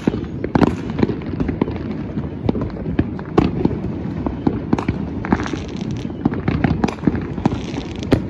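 Many fireworks and firecrackers going off all around, a constant scatter of sharp cracks and bangs at irregular intervals over a steady low rumble of distant explosions.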